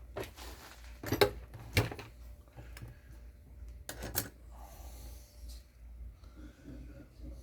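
Clunks and rattles of hard objects being handled and set down, with the loudest knocks about a second in, again just before two seconds and around four seconds, over a low steady hum.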